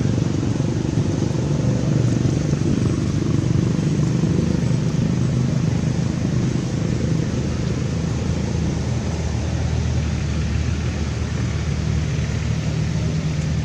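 Steady low rumble of motor traffic, a continuous engine hum with no breaks.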